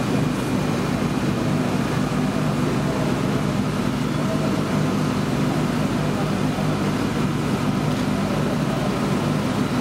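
Honda V12 Formula One engine idling steadily, an even low hum that holds one pitch.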